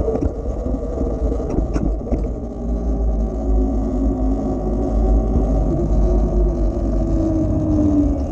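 E-Ride Pro SS electric dirt bike running along under way, its motor whine dropping in pitch over the last few seconds as it slows, over a heavy low rumble of wind on the microphone.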